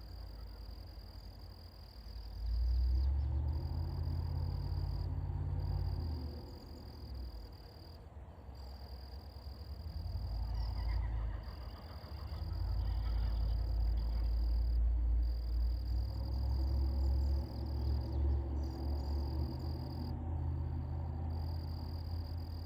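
Frogs croaking low in the pond in long stretches, starting about two seconds in, with a faint steady high insect-like drone in the background.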